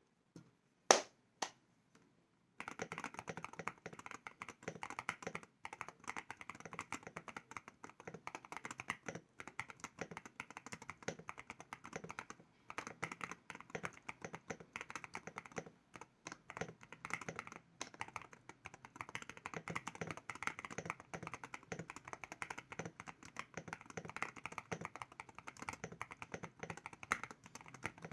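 Typing on an Ikki68 mechanical keyboard fitted with Anubis switches: a few single keystrokes in the first couple of seconds, then steady, fast typing with only brief pauses.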